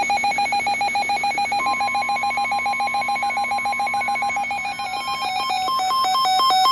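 Weather radio alert tones for a flash flood warning: rapid electronic beeping, about ten beeps a second, with a steady warning tone coming in about a second and a half in. Near the end the beeping changes to a two-note warble, alternating a few times a second.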